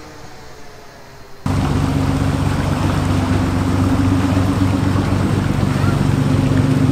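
Faint outdoor background, then about a second and a half in a sudden cut to a canal tourist barge's engine running steadily at close range, a low steady hum with propeller-churned water rushing alongside.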